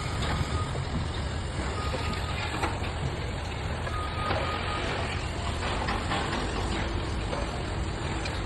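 Heavy machinery's engine running steadily, with a short high warning beep about four seconds in.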